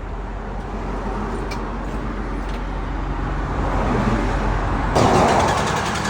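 Steady freeway traffic rumble. About five seconds in, a louder mechanical noise with a fast, even rhythm starts suddenly and keeps going.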